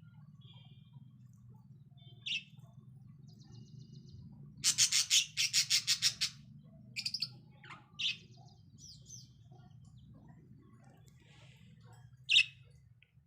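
Budgerigars chirping, with single sharp calls and, about five seconds in, a quick run of about eight loud harsh squawks. A faint steady low hum runs underneath.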